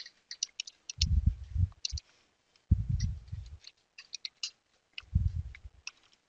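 Computer keyboard typing: quick, irregular key clicks as a terminal command is edited. Three low, muffled bumps of under a second each come between the clicks and are louder than the keys.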